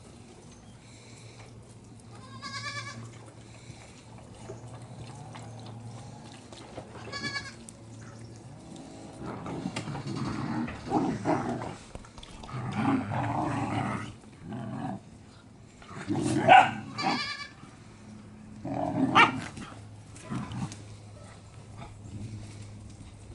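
Puppies vocalizing as they play-fight: two short wavering high whines in the first several seconds, then a run of louder yelps and squabbling cries from about nine to twenty seconds in.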